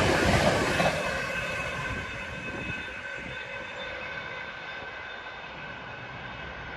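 Intermodal freight train of container flat wagons passing at speed, its wheels loud at first, then fading over about the first three seconds as the tail recedes. What remains is a faint distant rumble with a thin steady whine.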